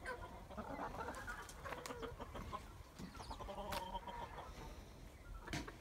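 Chickens clucking, short scattered calls, with a couple of sharp knocks.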